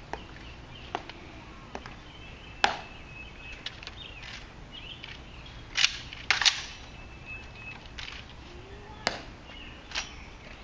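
Honor-guard soldiers' heel clicks and footsteps on a stone plaza: single sharp clicks about every second in a slow marching step, then louder isolated clacks as two guards face each other with a rifle. The loudest clacks come a little before a third of the way in, just past the middle, and again near the end.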